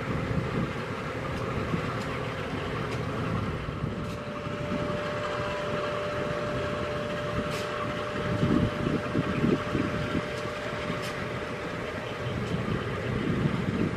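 Kirow railway crane's diesel machinery running steadily as it works its hook, with a thin steady whine from about four seconds in until past the middle and a few faint clicks.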